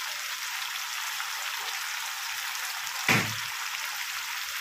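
Tomato-onion masala sizzling steadily in hot oil in a frying pan, with one sharp knock about three seconds in.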